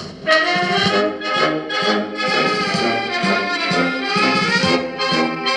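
Brass music: trumpets and trombones playing a melody in held notes, coming in about a third of a second in, just after a snare drum roll.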